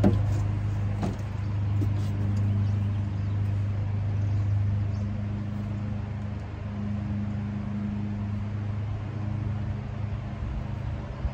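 Steady low mechanical hum, with a few light clicks in the first couple of seconds.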